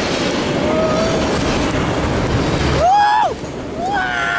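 Loud rushing roar of a freight train passing at speed through deep snow, snow and wind blasting over the microphone. About three seconds in and again near the end, people whoop and yell over it.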